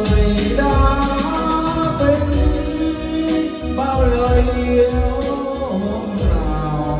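A Vietnamese karaoke ballad, a sung melody over band accompaniment with heavy bass, played loud in the room through a home hi-fi karaoke system: a pair of JBL 4012 loudspeakers with a DB Acoustic subwoofer.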